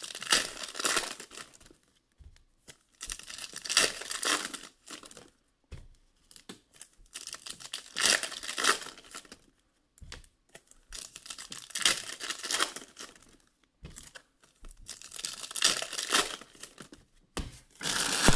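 Foil trading-card packs (Panini Optic Fast Break basketball) being torn open and crinkled by hand. The sound comes in separate bursts every three or four seconds, one for each pack, with short quiet gaps between.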